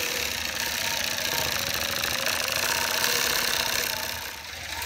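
Gammill Elevate computer-guided longarm quilting machine stitching an edge-to-edge pattern on its own, a steady rapid needle clatter with the hum of the machine head. It drops in level a little before the end.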